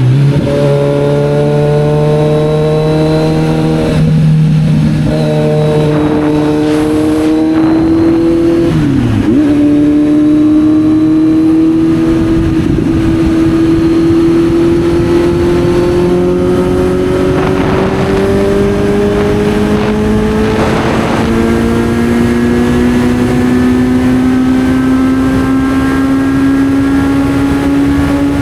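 Kawasaki Z900's inline-four engine running under way, with steady wind and road rush. The engine note steps and dips a few times in the first nine seconds, then climbs slowly and steadily in pitch as the bike gains speed.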